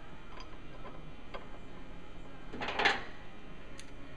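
Hand tools and metal parts being handled while a motorcycle exhaust mounting bracket is bolted on: a few faint clicks, then a short metallic rattle about two-thirds of the way through.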